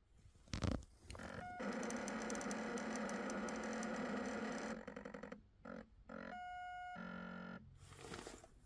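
A knock about half a second in, then the Triumph Daytona 675's throttle-body solenoids, after the ignition is switched off, buzzing in several stretches of steady electric tone, a long one and then shorter ones: the solenoids going back to neutral.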